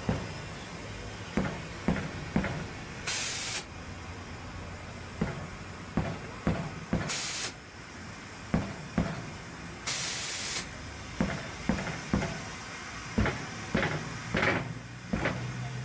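Three short bursts of compressed-air hiss, a few seconds apart, among frequent sharp metal knocks and clanks of tyre-fitting work on a steel wheel rim.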